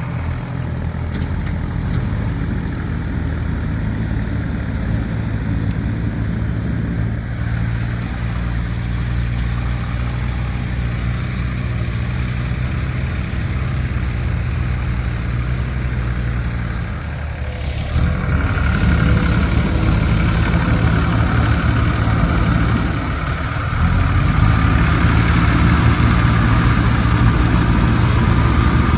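Diesel engine of a JCB backhoe loader working, a steady hum that revs up and gets louder about two-thirds of the way through, eases off briefly, then revs up again near the end.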